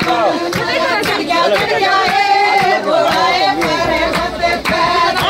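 A group of women singing together, with hands clapping along in a steady beat of about two claps a second.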